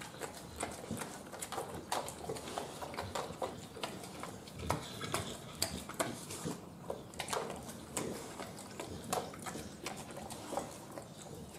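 An American Bully dog licking and chewing up scraps of raw ground-beef satin balls off a plastic crate floor tray: a string of irregular smacking, lapping and clicking sounds.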